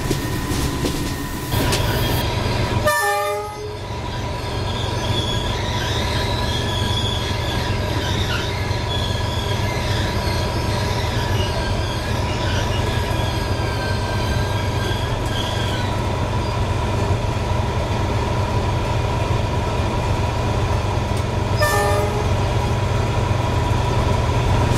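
Train running with a steady rumble and a wavering wheel squeal that stops about two-thirds of the way through. Two short horn blasts sound, about three seconds in and again near the end, the first falling in pitch.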